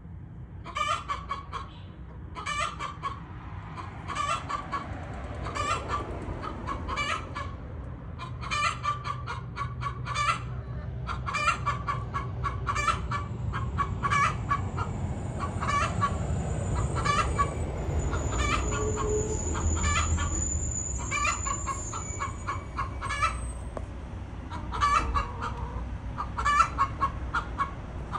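Feral hen clucking loudly and repeatedly, about one call a second, with no let-up.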